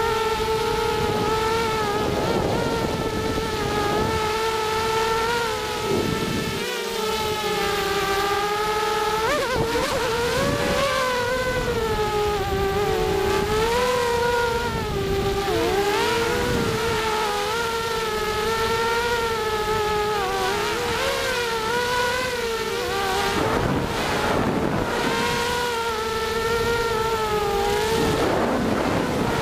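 Brushless motors and propellers of a ZMR250 racing quadcopter, 2300 kV motors on a 3S battery, whining steadily as heard from its onboard camera. The whine's pitch rises and falls continuously as the throttle changes. There are short bursts of louder rushing noise near the end.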